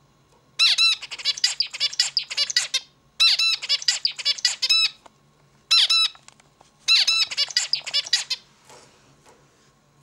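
Male zebra finch singing: four bursts of song in quick succession, the third very short.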